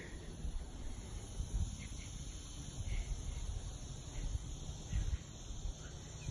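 Insects chirping faintly outdoors, a few short scattered chirps, over a low rumble of wind on the phone's microphone.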